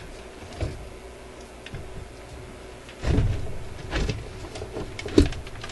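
Record changer's mounting board being lifted and tilted up out of a record player cabinet: scraping and a few knocks against the cabinet, the sharpest about five seconds in.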